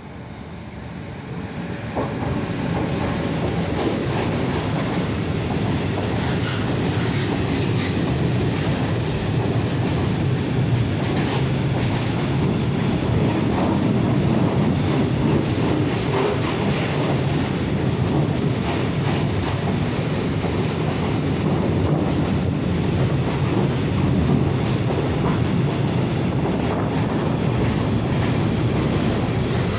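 DB Siemens Vectron electric locomotive passing, growing louder over the first two seconds, followed by a long freight train of flat wagons rolling by. A steady rumble of wheels on rail runs under scattered clacks of wheels over rail joints.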